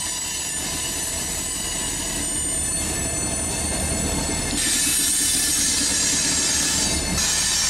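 BNSF diesel locomotives rolling slowly past, with a low engine rumble and steel wheels squealing in several high steady tones. About four and a half seconds in, the squeal gives way suddenly to a broad hiss over the same rumble.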